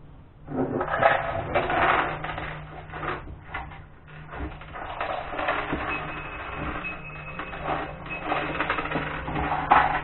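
Small hard objects clattering and knocking as they are handled, in quick irregular runs over a steady low hum.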